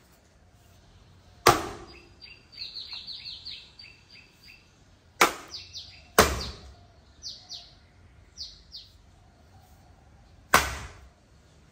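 Axe chopping firewood: four heavy strikes into a log, the first about a second and a half in and two close together around the middle. Between the strikes a bird calls with a quick run of high chirps, then a few shorter pairs.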